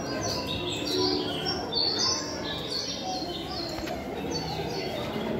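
Many birds chirping at once: short high notes overlapping one another, many of them falling in pitch.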